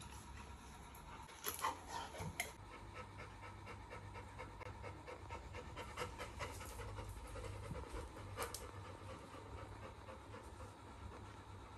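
Labrador retriever panting with its tongue out, a quick, even breathing rhythm, with a few sharp clicks about two seconds in.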